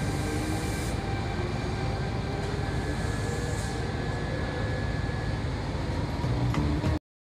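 Trenitalia E.464 electric locomotive pulling away, its traction motors giving a whine that rises slowly in pitch as it gathers speed, over steady running noise. The sound cuts off abruptly near the end.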